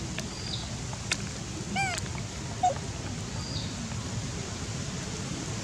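Young macaques' short squeaky calls over a steady low rumble: a brief high chirp near the start, an arched squeak about two seconds in, and another high chirp past halfway.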